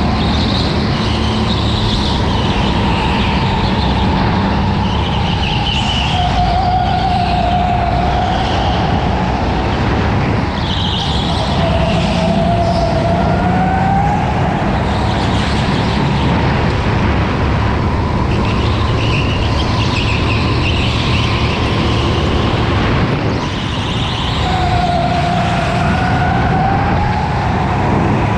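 Racing go-kart heard from onboard: a steady motor whine over wind and road rumble, with tyres squealing in the corners as high wavering tones that rise and fall several times.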